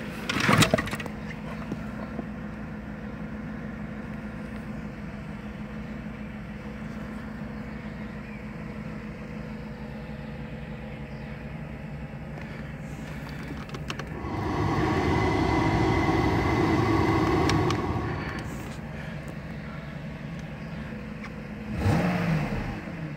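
Mercedes W140 400 SEL's 4.2-litre V8 idling steadily, heard from inside the cabin. There is a sharp knock just after the start, a louder steady sound for about four seconds in the middle, and a brief swell near the end.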